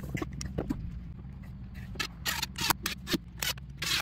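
Faint scrapes and clicks, then from about halfway a string of short bursts from a cordless impact driver running bolts into a lawn-tractor transaxle housing.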